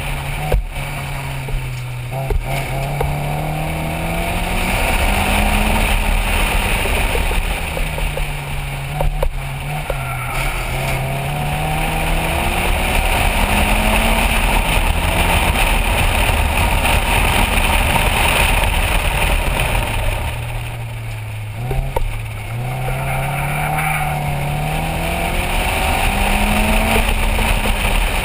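MEV Rocket XP1 track car's engine heard from the open cockpit at speed. Its note climbs under acceleration and drops away twice as the car slows for tighter corners, over a steady rush of wind.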